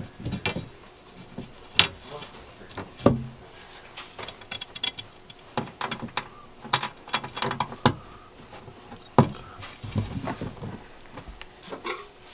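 Scattered light metallic clicks, taps and scrapes as a length of metal L-track is held against a van wall panel and its first screws are started by hand.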